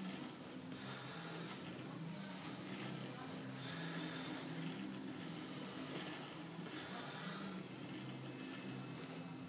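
A person's heavy breathing close to the microphone, faint and regular, in and out about every three seconds, over a faint steady low hum.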